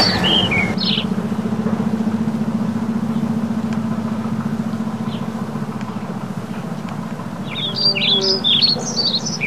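Minibus engine idling steadily, a low even hum. Birds chirp in the first second and again through the last two seconds.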